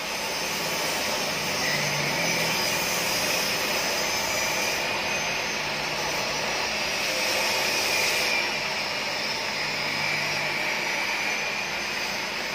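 TIG welding arc burning steadily on a stainless steel exhaust pipe, heard as a constant hiss with a faint high whine.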